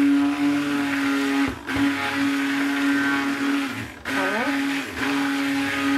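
Stick blender running in a jug of cold process soap batter, blending the oils and lye water with a steady whine. It cuts out briefly twice, and the second time spins back up with a rising whine.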